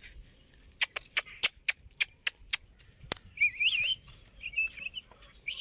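A run of about ten sharp clicks, some four a second, then warbling high-pitched chirps: the calls of a small wild bird or animal.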